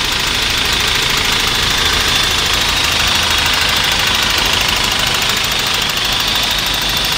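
Toyota 22RE 2.4-litre four-cylinder engine idling steadily, with a fast, even ticking and clicking on top of the running. The ticking is the fuel injectors at work.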